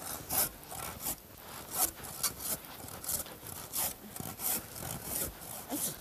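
Hand saw cutting through a snow-covered wooden log, with back-and-forth strokes at about one and a half a second.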